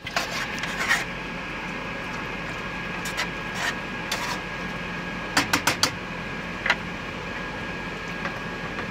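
A spoon scraping and tapping against a cooking pot while pasta is stirred, with scattered sharp clinks and a quick run of them about five and a half seconds in. A steady low hum runs underneath.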